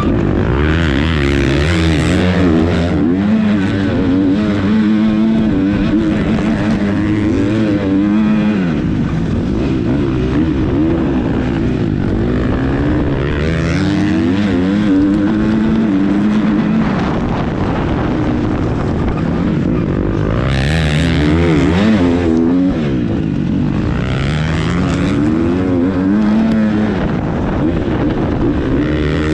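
Motocross bike engine heard on board under race load, its pitch climbing and dropping again and again as the rider opens and closes the throttle through the gears and corners.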